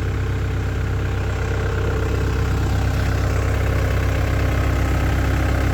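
Skid steer's diesel engine running steadily at an even speed.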